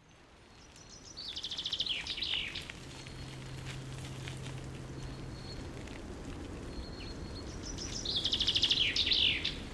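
A songbird singing two short high phrases about six seconds apart, each a fast trill ending in a few falling notes, over a steady outdoor hiss.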